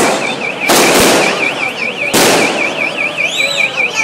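An electronic alarm wails with a high warbling tone, rising and falling about six times a second, over the din of a street crowd. Loud bangs, like firecrackers, break through about a second in and again about two seconds in.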